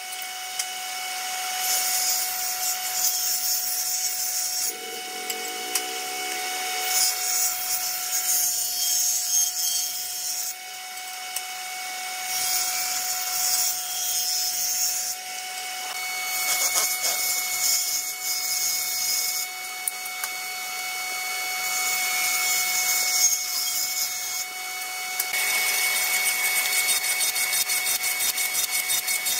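Table saw ripping pine boards in a series of passes, its blade running steadily between cuts. Near the end a jointer is planing a board edge, with a fast, even cutting sound.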